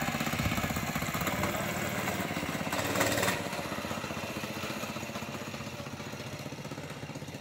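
Small mini bike engine running steadily as the bike rides away, growing fainter over the last few seconds, with a brief louder rush of noise about three seconds in.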